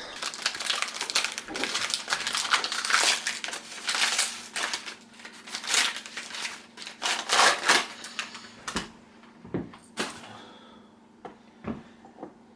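Paper and cardboard crinkling and tearing as a wrapped advent calendar bottle is opened, thinning out to a few separate clicks and taps after about eight seconds.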